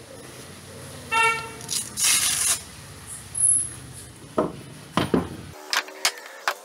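Handling sounds while sandpaper is changed on a sanding pad, with the sander off. There is a short rasping noise about two seconds in, and several sharp knocks and clicks later on. A brief tooting tone sounds about a second in.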